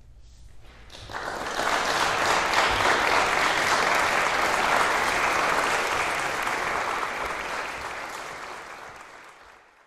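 Audience applauding. The clapping starts about a second in, quickly swells to full strength, then thins out and fades near the end.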